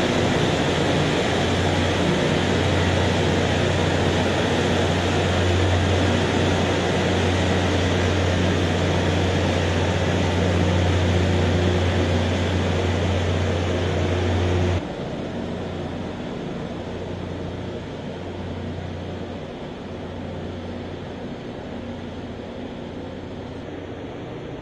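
Loram rail grinder passing: the grinding stones on the rail make a loud, steady grinding noise over a strong low hum. About fifteen seconds in the noise drops suddenly, leaving a quieter, duller rumble of the passing train.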